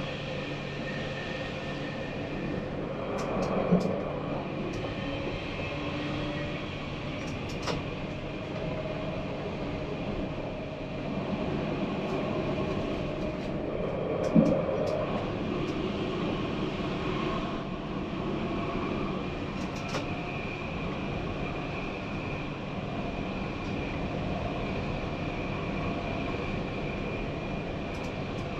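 Tram running along the track: a steady rumble with scattered light clicks, and two short louder knocks, about four seconds in and again about halfway through.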